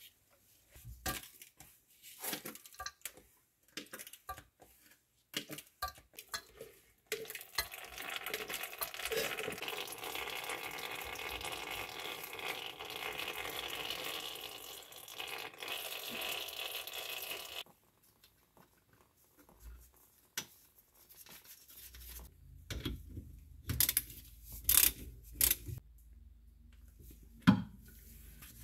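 Rear limited slip differential being filled with gear oil through a hose in its fill hole. First come scattered clicks and taps of the hose and fittings. Then, about seven seconds in, a steady hissing splash of oil running out of the full fill hole and down the casing lasts about ten seconds, cutting off suddenly. Scattered knocks and clicks follow near the end.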